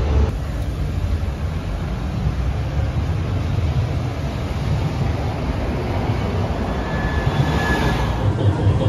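City street traffic with an electric tram running in toward the stop: a steady low rumble of wheels and road noise, with a brief high whine about seven seconds in.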